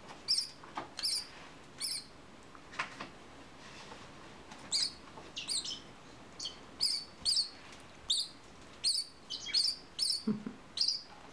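Bourke's parakeet chick begging while being hand-fed: short, high chirps in quick runs, with a pause of about two seconds a few seconds in.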